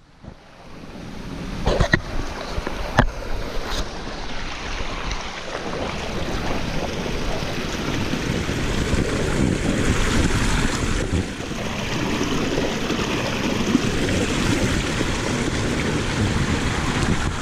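Steady rushing of a shallow, rocky mountain stream mixed with wind buffeting the microphone, rising from a brief quiet at the start. A few sharp knocks come in the first four seconds.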